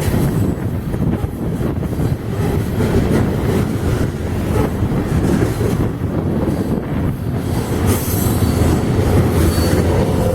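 Freight train rolling past, a steady rumble of steel wheels on the rails, with short high wheel squeals near the end.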